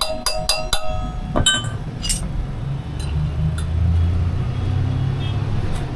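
Metal tools clinking against each other with a bright ring: about six quick strikes in the first two seconds, then a few faint ticks.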